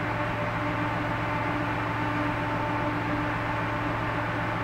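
Ship's engine and machinery droning steadily, a low hum with a few steady higher tones under an even hiss.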